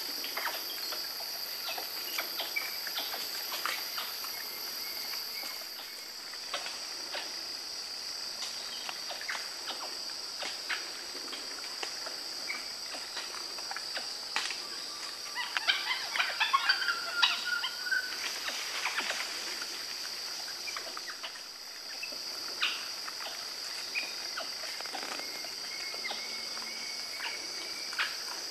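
Forest ambience: a steady high insect drone with scattered clicks and crackles. A brief flurry of bird calls comes about fifteen to eighteen seconds in.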